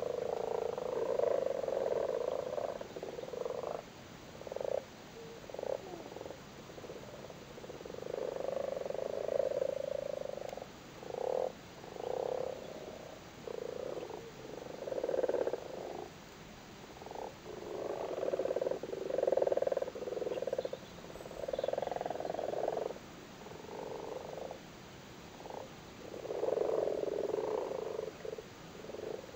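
Common frogs croaking together in their spawning chorus: overlapping bouts of croaks lasting a second or a few, with short single croaks in between. These are male frogs calling at the spawn in the breeding season.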